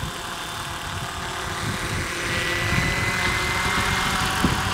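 Electric MD500 scale RC model helicopter hovering low under a heavy slung load: steady rotor noise with a thin high motor whine that rises slightly in pitch and grows louder about halfway through, over an irregular low rumble.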